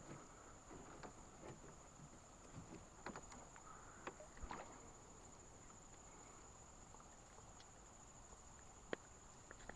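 Near silence: a steady high-pitched thin drone with a few faint scattered clicks and knocks, the sharpest near the end.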